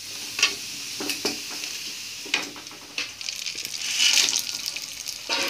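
Dried potato chips deep-frying in hot oil, a steady sizzle with a few sharp knocks of a utensil against the pan or plate. About four seconds in the sizzling swells as a fresh batch of dried chips is dropped into the oil.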